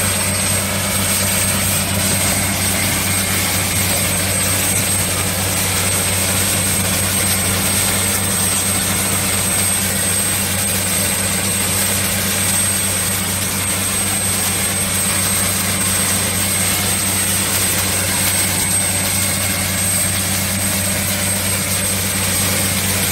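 Truck-mounted DTH water well drilling rig running: the steady drone of its engine and air compressor, with the hiss of compressed air blowing a jet of water and spray up out of the borehole, and a thin high-pitched whistle over it.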